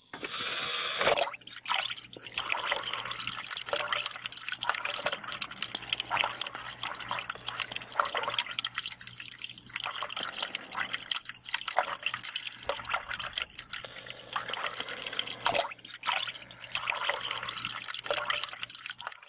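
Liquid running and dripping: a dense, crackly trickle full of small splashes and drips, with a faint steady low hum beneath, dipping briefly a few times.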